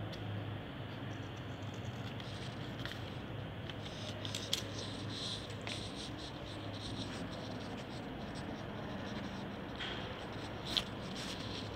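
Paper being cut with scissors and handled, with light snips and scratching over a steady low hum, and one sharper click near the end.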